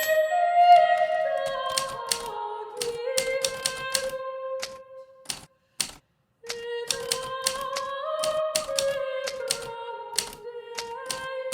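Hermes Baby portable typewriter typing: keys striking in a quick, irregular rhythm, over soft music of slowly stepping held notes that pauses for about a second halfway through.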